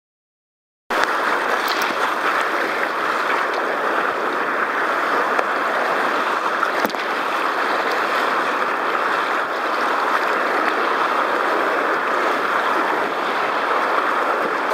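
Rushing whitewater of a mountain river, heard close up from a camera on a kayak's deck: a loud, steady rush of water that starts suddenly about a second in.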